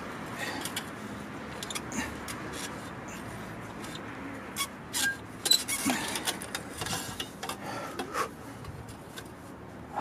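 Irregular clicks, knocks and scrapes of a motorcycle exhaust pipe being worked by hand into its mount on the frame of a Yamaha XT600, with a few brief metallic rings about halfway through.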